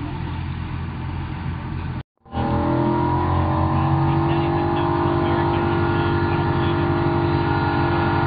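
A vehicle engine running steadily nearby. There is a brief gap about two seconds in; after it the engine is louder, its pitch sinking a little and then holding steady.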